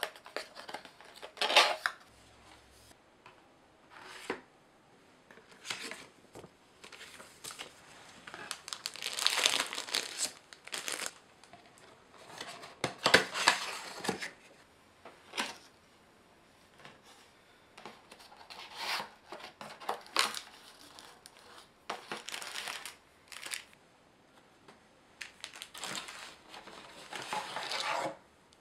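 Cardboard packaging being handled and opened: flaps and inner trays rubbing and scraping, with crinkling of wrapping, in irregular bursts of a second or two.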